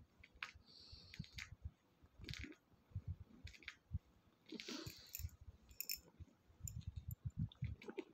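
A grown cat suckling on another cat's belly, where there is no milk: faint, irregular wet sucking clicks and smacks.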